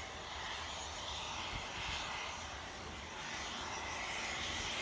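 Twin-engine business jet taxiing, its jet engines running steadily at low power with an even hiss.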